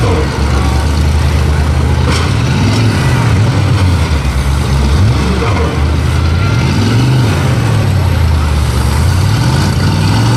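Several demolition derby cars' engines running and revving, the pitch rising and falling again and again as drivers blip the throttles. A single sharp bang about two seconds in.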